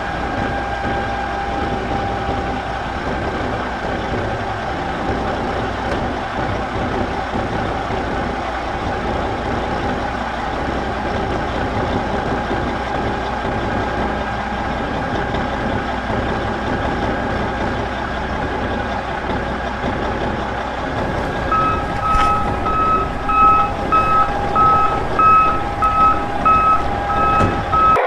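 A motorised mini toy tractor runs with a steady motor whine. About three-quarters of the way through, a reversing alarm starts beeping in quick, evenly spaced short beeps over the whine.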